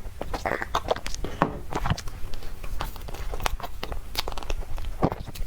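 Chewing and wet mouth sounds of someone eating soft dessert, made up of irregular clicks and smacks, several a second.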